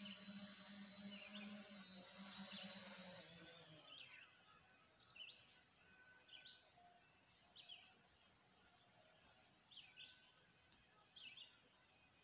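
Small quadcopter drone's propellers whining steadily as it sets down, then cutting off about three and a half seconds in as the motors stop. Afterwards a bird chirps repeatedly, short high rising chirps about once a second.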